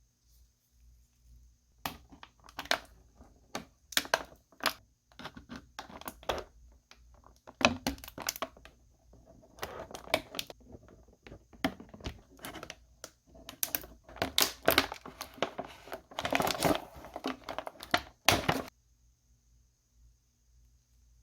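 Action figure packaging being handled and opened: crinkling and crackling with many sharp clicks and taps, starting about two seconds in and stopping near the end.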